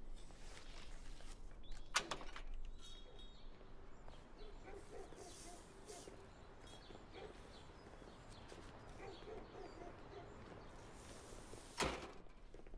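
A door latch clicks open sharply about two seconds in, with faint room sound after it and another sharp knock near the end.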